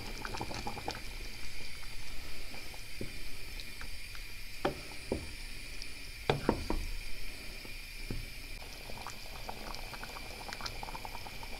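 Thick göce tarhana stew with cowpeas and lamb bubbling in a pot on the boil, with many small pops of bursting bubbles. A wooden spoon stirs through it, and there are a few louder sharp knocks about halfway through.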